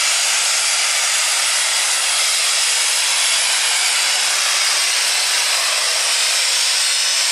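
Heavy super stock pulling tractor's turbocharged diesel engine at full power, pulling the sled. It is a loud, steady roar with a high whistle held over it.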